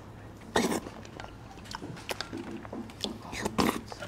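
Mouth sounds of someone eating spoonfuls of thick yogurt. There are two short slurps, about half a second in and again near the end, with faint lip and spoon clicks between.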